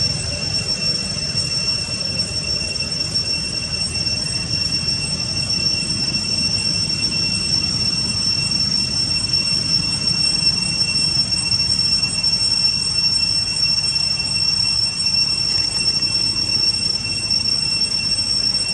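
Steady high-pitched whine holding two constant pitches over a low rumble, unchanging.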